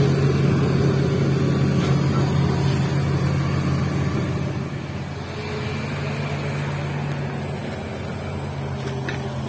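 Hydraulic excavator's diesel engine running with a steady low hum, easing off a little about halfway through.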